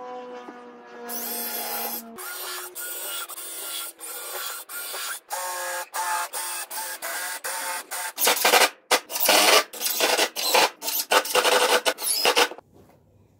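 Cordless drill-driver driving screws into MDF, its motor whining in repeated short runs that stop and start, choppiest and loudest in the last few seconds before it stops shortly before the end. A steady low hum fills the first couple of seconds.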